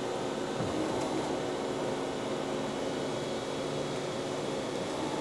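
Mitsubishi RB32 CNC cylindrical grinder running, its grinding wheel just started and spinning: a steady machine hum with several steady tones over a hiss.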